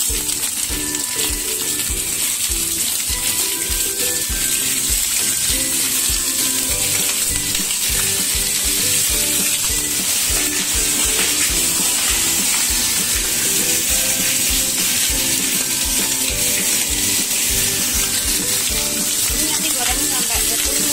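Pieces of fish frying in hot oil in a steel pan, with a steady sizzle throughout. Background music with a steady beat plays over it.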